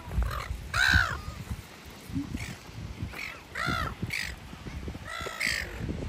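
Silver gulls calling repeatedly: about half a dozen short calls over a few seconds, the loudest about a second in.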